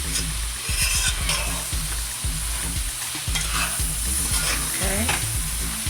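Sausage and chopped vegetables sizzling in a pot in their own fat and juices, with only a little liquid so they fry rather than boil, while a spoon stirs them in repeated strokes.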